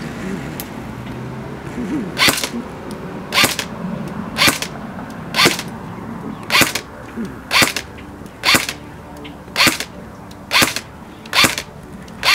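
Tokyo Marui MP5SD6 airsoft electric gun (AEG) firing single shots, about one a second, ten in all, starting about two seconds in.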